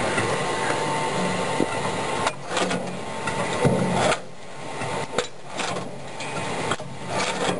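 Belt-driven branch chipper-shredder chewing up a branch fed into its hopper: a dense crackling, rasping noise of wood being chopped and broken, with a few short lulls.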